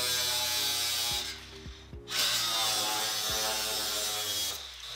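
Cordless angle grinder cutting metal: a steady whine with a grinding hiss. It stops about a second in, starts again a second later and runs for about two more seconds. Background music plays underneath.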